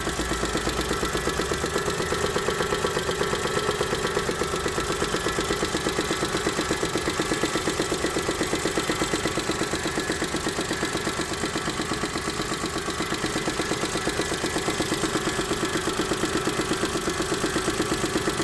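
Daewoo Matiz 0.8-litre three-cylinder engine idling with a steady, rhythmic knock. The knock shows up only once the engine is warm and is still there after a valve adjustment; the owner can't tell whether it is a fault or the engine's normal running.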